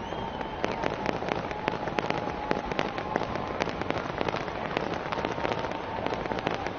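Fireworks crackling and popping: many sharp cracks in quick, irregular succession.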